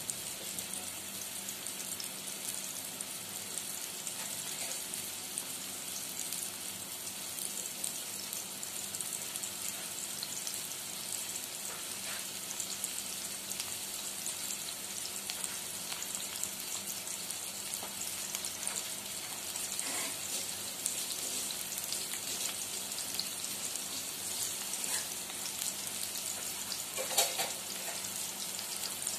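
Chopped onions sautéing in hot oil in a wok, a steady crackling sizzle as they cook down toward translucent. A short knock sounds near the end.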